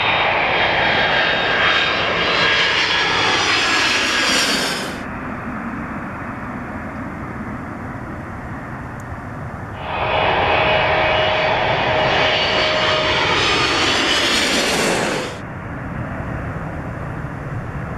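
Jet airliners landing: two loud passes of jet engine whine and rumble, each with a pitch that falls as the aircraft goes by. Each pass cuts off suddenly, about five and about fifteen seconds in, leaving a quieter steady jet rumble.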